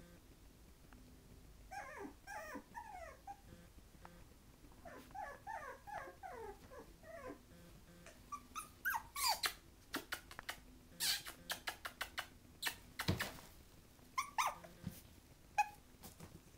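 Five-week-old Havanese puppies whimpering in two runs of short, high calls that bend up and down. These are followed in the second half by a string of sharp clicks and knocks, with one heavier thump.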